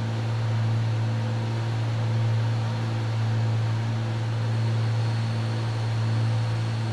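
Cessna 310's twin piston engines droning in the cockpit on final approach: a strong, steady low hum over a constant hiss, swelling gently and fading every second or two.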